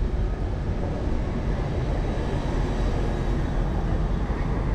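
Steady city street traffic noise: a low rumble with a city bus running close by.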